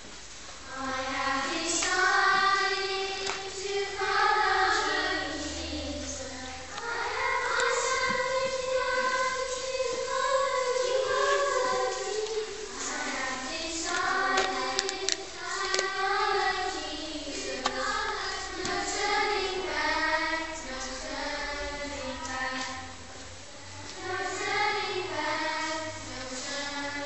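A choir of high voices singing a slow melody with long held notes, in a large stone church.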